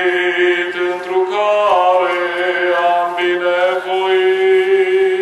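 A male voice chanting an Orthodox liturgical reading, holding long notes and stepping between a few pitches.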